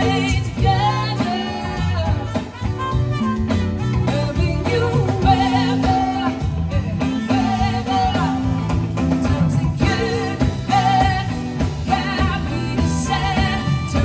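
Live band playing a song on an outdoor stage, with a singer holding notes with vibrato over keyboard, guitar, bass and drums.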